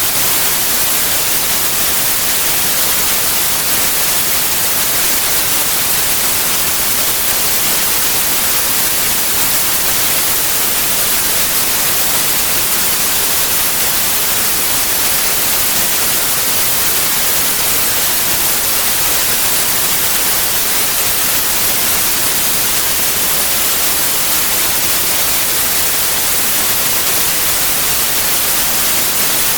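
White noise: a steady, even hiss, strongest in the high frequencies.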